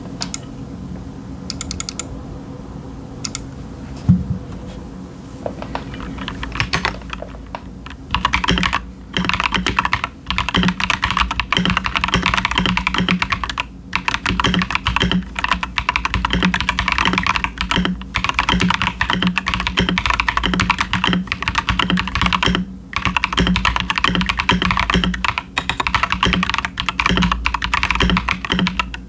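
Stock Akko 5075s mechanical keyboard with Techno Violet linear switches and doubleshot PBT keycaps being typed on: a few scattered keystrokes at first, then steady fast typing from about eight seconds in, with a few short pauses.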